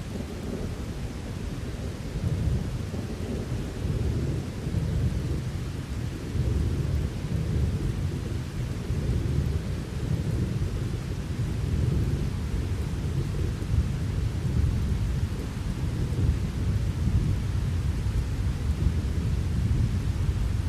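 Thunderstorm: long rolling thunder rumbling low and continuously, swelling about two seconds in, over steady rain.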